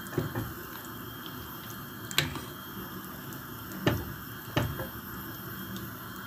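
A metal ladle knocking against a stainless steel soup pot a few times as pink salmon tails and fins are stirred into hot water, over a steady low hiss of water on the stove.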